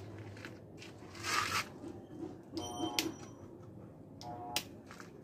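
Handling noises on a benchtop drill press: scattered clicks and knocks, with two brief squeaks about three and four and a half seconds in.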